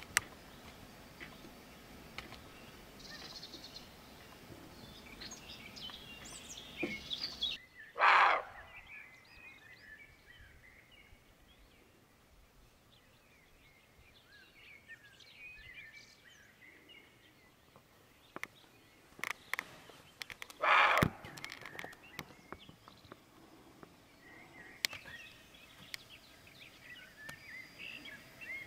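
Songbirds chirping and singing in the background, broken twice by a loud, short harsh sound, about a third of the way in and again some twelve seconds later, with a few sharp clicks between.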